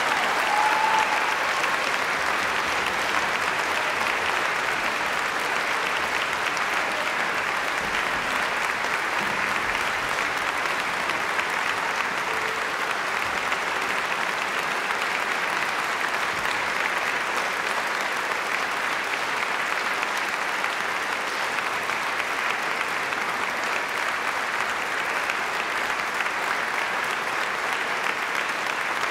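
Audience applauding steadily at the close of an operatic aria.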